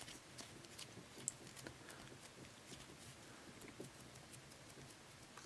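Near silence with faint handling sounds: hands pressing and kneading Play-Doh into a disc, with a few soft ticks.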